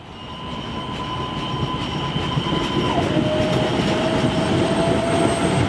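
MBTA Green Line light-rail train running along the tracks, growing louder over the first two seconds. Its electric drive gives a steady whine that steps down in pitch about three seconds in, over a rumble of wheels on rail.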